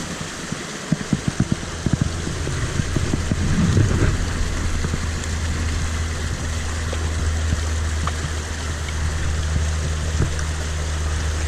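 Flowing river water with close splashes and knocks in the first few seconds as a caught chub is put back into the water by hand. From about four seconds in, a steady low hum runs under the water noise.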